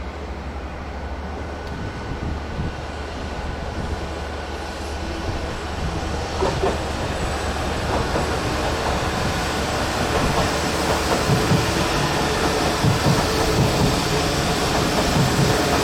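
Class 33 diesel-electric locomotive, with its Sulzer eight-cylinder engine, moving along the track with a steady low engine drone and wheels running on the rails. It grows steadily louder as it draws nearer, with more wheel and track noise in the second half.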